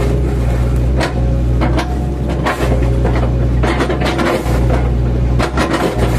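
Mini excavator's diesel engine running steadily under load while it chips oil palm trunks, with irregular knocks and cracks of the trunk wood being broken up.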